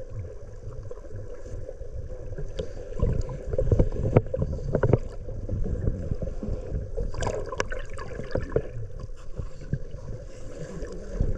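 Water sloshing and bubbling around a snorkeler's camera, with splashes and knocks that come loudest about four seconds in and again around seven to eight seconds in.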